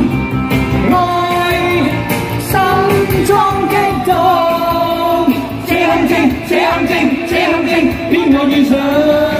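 A Cantonese pop song performed live: a voice singing over the accompaniment.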